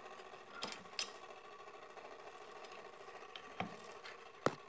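Spring-driven clockwork movement of an antique oak-cased fly trap running with a steady fine whirr. A few sharp clicks come through it, the loudest near the end.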